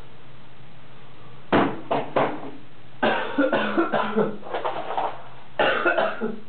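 A person coughing: three short coughs, then a longer coughing fit and one more bout near the end.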